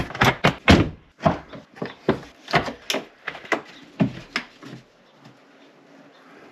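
The 2021 Ford Bronco's removable hardtop roof panel being unlatched and pushed up out of its frame: a quick run of sharp clicks and knocks that gives way to quieter handling noise about five seconds in.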